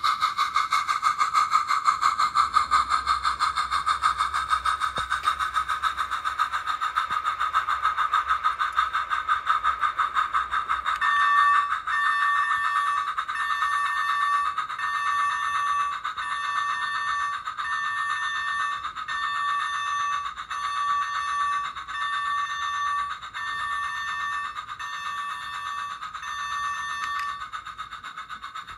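Electronic sounds from a garden-scale model locomotive's sound unit. A steady, fast-pulsing pitched buzz gives way about eleven seconds in to a two-note electronic chime repeated about once a second, which stops shortly before the end.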